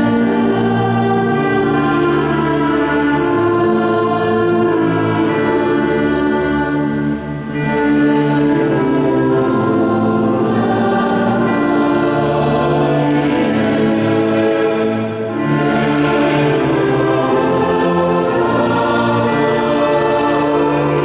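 Mixed choir singing a slow sacred piece with a wind band accompanying, the phrases breaking off briefly twice.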